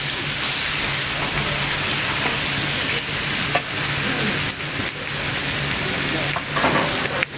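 Food sizzling as it fries, a steady hiss, with a low steady hum underneath and a few faint clicks.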